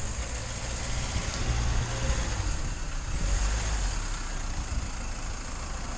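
Mercedes Sprinter van running on axle stands, engine and driveline turning steadily with a low rumble; no distinct squeak stands out.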